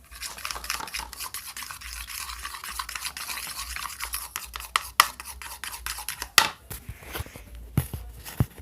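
A thick glue-and-talc slime mixture being stirred and scraped in a container: a dense crackly scraping with many small sharp clicks, and a few louder knocks in the second half.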